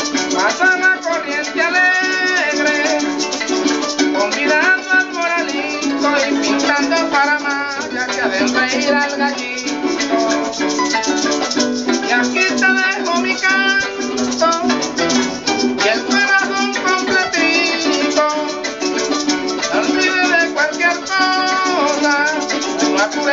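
Venezuelan llanero music: a llanero harp and a cuatro strumming, with maracas shaking steadily. A man's voice sings copla phrases over them.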